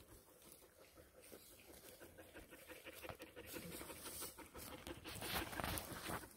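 A dog panting faintly, growing a little louder after about three seconds.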